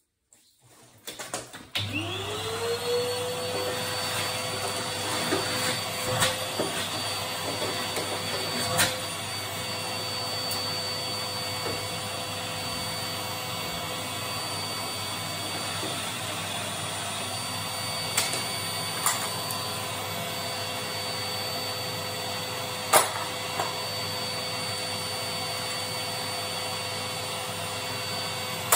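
Canister vacuum cleaner switched on about two seconds in, its motor spinning up to a steady whine and running on as the boiler's combustion chamber is vacuumed out during a service. A few sharp knocks sound along the way.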